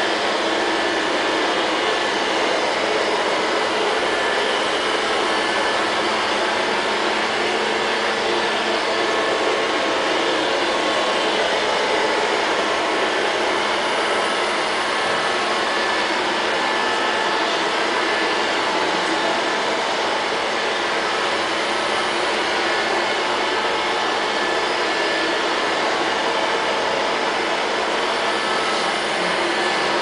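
LL-302 robot vacuum cleaner running as it drives across the floor: the steady, even noise of its suction fan and brushes, with a few faint steady tones in it.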